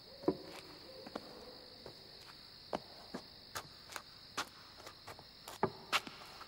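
Scattered light clicks and knocks of tableware (cups, bowls and utensils) being handled at a meal, a dozen or so irregular taps, over a steady high chorus of crickets.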